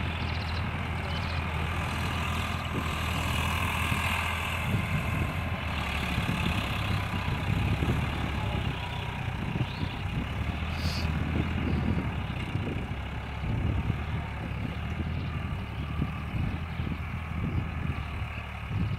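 Eicher 551 4WD tractor's diesel engine running steadily, a low drone with an uneven rumble beneath it.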